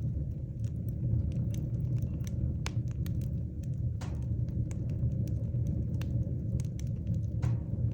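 Wood fire burning in a fireplace: a steady low rumble of flames with frequent small crackles and a few sharper pops of burning wood.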